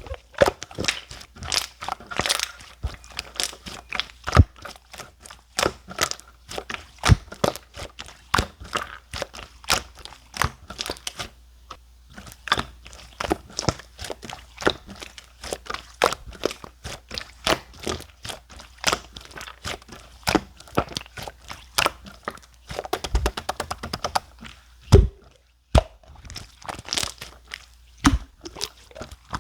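Clear slime being squished and pressed by hand, making irregular sharp clicks and pops, several a second, with a quicker run of crackles near the end.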